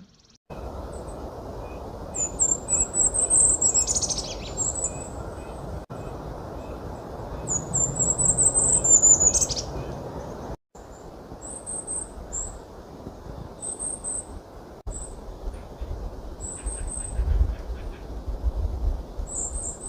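Golden-crowned kinglet song, heard twice: an accelerating series of very high, thin see notes that tumbles into a lower chatter. It is followed by the kinglet's high, thin, somewhat raspy see calls, given in short groups of two or three.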